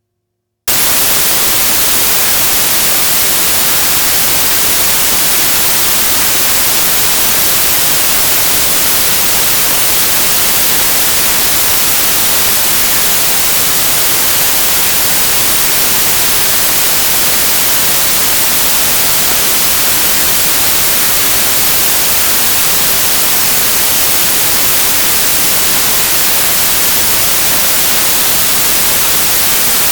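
Loud, steady hiss of white noise that starts abruptly about a second in and holds an unchanging level, with no pitch or rhythm.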